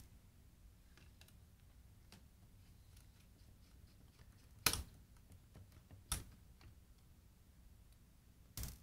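Faint small clicks and scrapes of a screwdriver working the mounting screws of a car CD changer's circuit board, with two sharper knocks about five and six seconds in.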